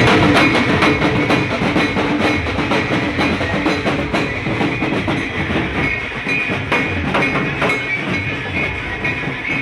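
Loud music with heavy drums and a steady beat.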